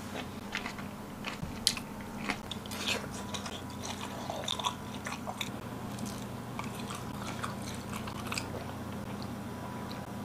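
A person biting and chewing food, with scattered small mouth clicks and smacks.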